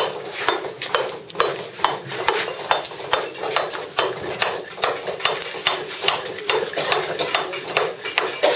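Round-headed mason's mallet striking a claw tool, about three quick strikes a second, as the claw chips thin layers of waste off a chamfer on a block of soft Bath stone.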